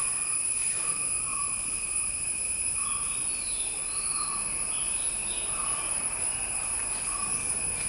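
A whiteboard marker writing, giving faint short squeaks now and then over a steady high-pitched whine in the background.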